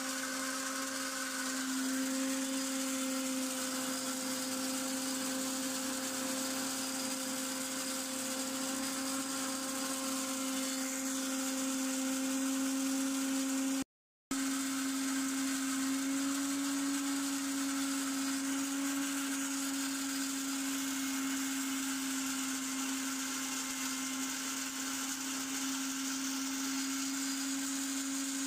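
Electric grain crusher running steadily, a continuous high motor hum with a brief break about halfway through.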